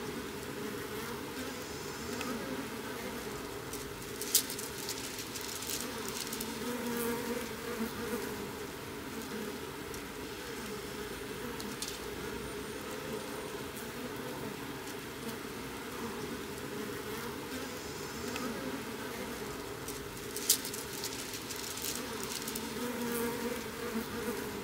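A colony of Japanese honey bees humming steadily, the dense buzz of many wings from the clustered bees. Two sharp clicks stand out, one about four seconds in and another some sixteen seconds later.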